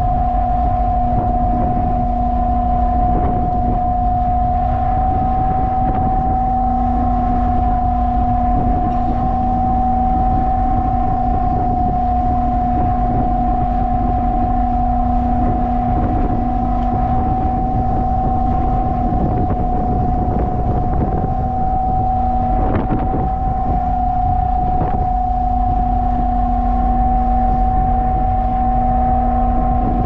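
Steady drone of a ship's engines and machinery: a constant hum with a steady whine above it over a low rumble, with wind buffeting the microphone.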